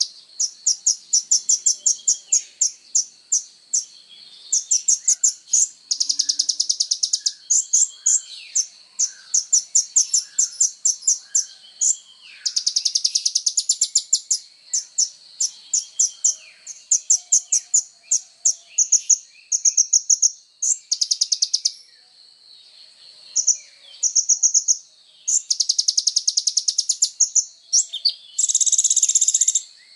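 Sunbird (kolibri ninja) singing non-stop: fast runs of sharp, very high-pitched notes and dense rattling trills, broken by short pauses. A faint steady high tone runs underneath.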